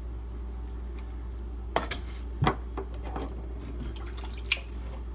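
A few light clicks and taps of small objects being handled and set down, over a steady low hum.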